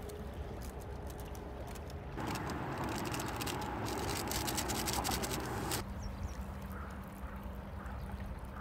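Steady rush of a shallow river riffle, with small clicks and knocks of a vacuum flask being handled on a metal mesh table. About two seconds in the rush grows louder, and near the middle it drops away abruptly, leaving a quieter steady hum.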